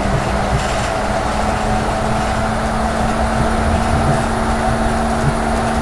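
Running sound inside a Yurikamome 7000-series rubber-tyred automated guideway transit car with thyristor phase control: a steady hum over the constant rumble of the car running along the guideway.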